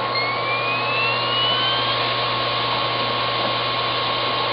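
A MacBook's machine noise: a steady hum and hiss with a constant tone, and a thin whine that rises slowly in pitch and fades out about two seconds in.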